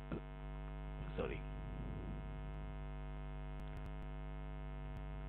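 Steady electrical mains hum on the recording, a dense stack of evenly spaced tones, with a brief vocal sound about a second in.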